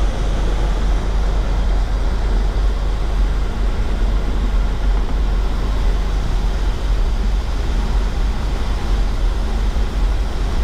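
Engine of a 1984 Chevrolet motorhome running steadily, heard from inside the cab with its engine cover off.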